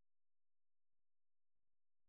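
Near silence, with a couple of very faint clicks.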